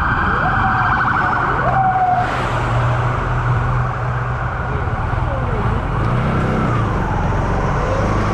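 City street traffic heard from a slowly moving vehicle: a steady engine hum and road noise, with scattered short rising and falling tones over it.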